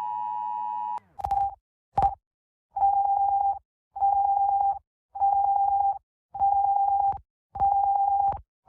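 Emergency-alert two-tone attention signal, a steady pair of tones, cuts off suddenly about a second in. A series of single-pitch electronic alarm beeps follows, each just under a second long, repeating about every 1.2 seconds.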